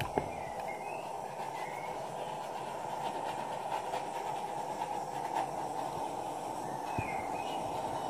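Hair dryer running steadily, blowing across wet acrylic paint on a canvas.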